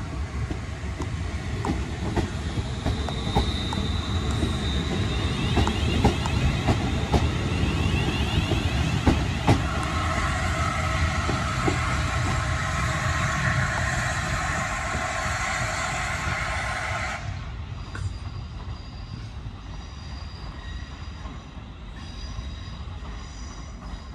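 Two coupled Class 350 Desiro electric multiple units pulling away from the platform, with the rumble of wheels on the rails and scattered clicks over the joints. A whine of the units' electric traction equipment follows and cuts off suddenly about two-thirds of the way through.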